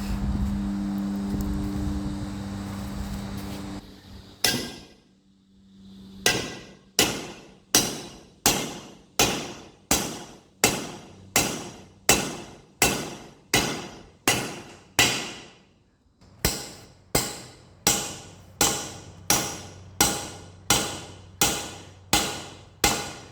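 Hammer striking a new wheel stud over and over to drive it into a semi-truck wheel hub until it seats: sharp, ringing metal blows, roughly two a second, with a short break about two-thirds of the way through. A steady hum fills the first few seconds before the hammering begins.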